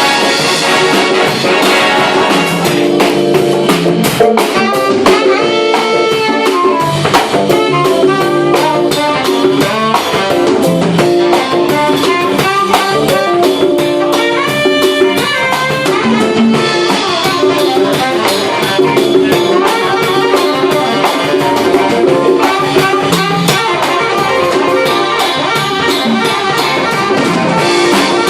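Big band playing jazz: saxophones and trumpets over a drum kit.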